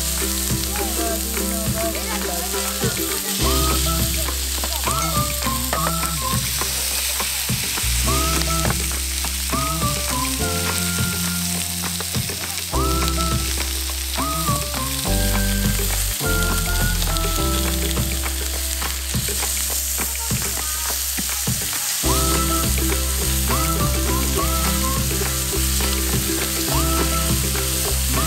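Pork belly sizzling on a round grill pan: a steady frying hiss. Background music with a stepping bass line plays under it.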